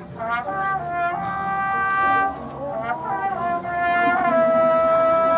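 Brass section of a marching band playing a phrase of held notes, each lasting about a second, with short upward slides into the next note.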